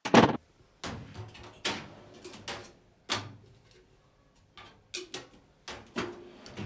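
Sharp knocks and clatters as a china mug, a metal tin and a filing-cabinet drawer are handled while making a cup of tea. The loudest knock comes right at the start, followed by about ten smaller ones.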